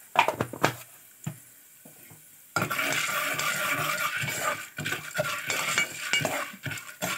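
Steel ladle stirring popcorn kernels in hot ghee in a pressure cooker, clinking and scraping against the metal pot. A few separate clinks at first, then from about two and a half seconds in a steady sizzle under busy stirring.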